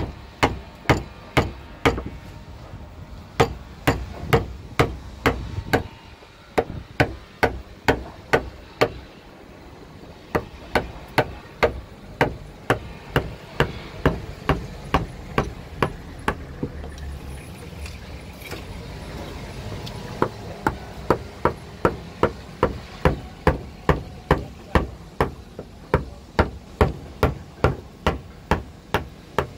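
Wood chisel being struck over and over to cut a carved design into wood: sharp, evenly spaced taps at about two to three a second, in runs with short pauses between them.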